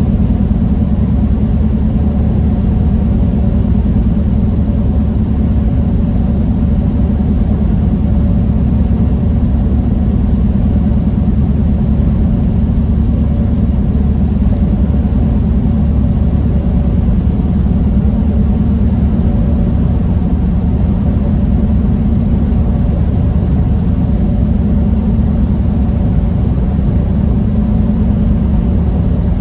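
Truck engine and road noise heard from inside the cab while driving: a steady, loud, low rumble with an even engine hum.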